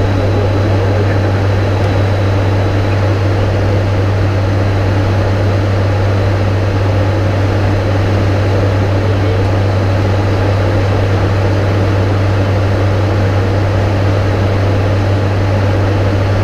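An ATR 72-500's two Pratt & Whitney PW127 turboprop engines and propellers droning steadily in flight, heard inside the cockpit, with a strong low hum that holds one pitch throughout.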